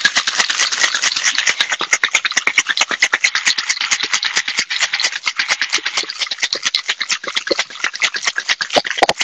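Ice rattling hard inside metal cocktail shakers as a margarita is shaken to chill it: a fast, steady rattle of many strikes a second.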